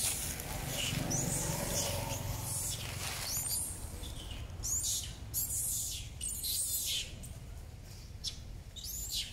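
Short, high-pitched chirping calls repeated throughout, often several in quick succession, over a steady low rumble.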